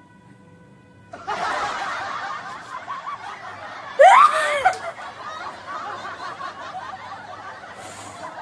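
People laughing and snickering, starting about a second in. About four seconds in there is one loud, short voiced burst whose pitch rises and then falls.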